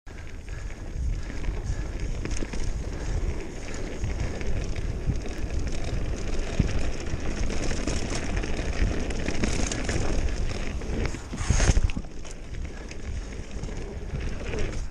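Mountain bike riding fast down a dirt forest trail: knobby tyres rolling and crackling over packed dirt and leaf litter, with wind rushing over the helmet or handlebar camera microphone. There is a louder jolt or gust about three-quarters of the way through.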